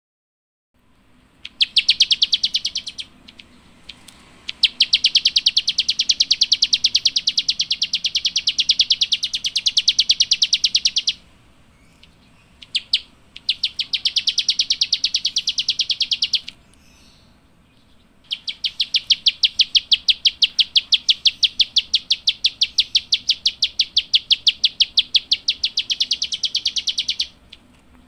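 A prinia, the 'klik-klik' or prenjak sawah of Indonesian bird-keepers, singing long, fast rattling trills of sharp clicking notes. There are four runs, each a few seconds long, with short breaks between them.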